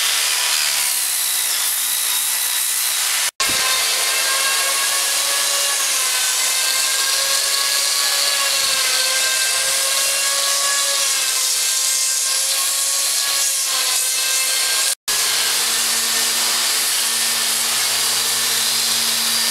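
Electric power tool running steadily against wood, a dense grinding noise with a motor whine that wavers slightly in pitch. The sound cuts out for an instant twice; after the second break the motor note is lower and steadier.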